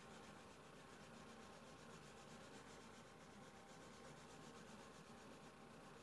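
Near silence: a faint, steady hiss of room tone.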